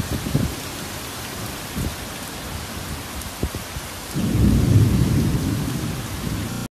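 Heavy rain falling steadily, with a deep rumble of thunder that comes in about four seconds in and slowly fades.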